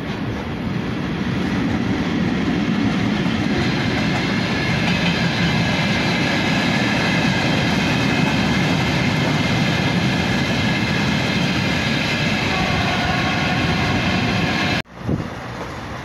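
Freight train of hopper wagons rolling over a rail bridge: a steady, loud rumble of wheels on track with several thin, high whining tones over it. It cuts off suddenly near the end.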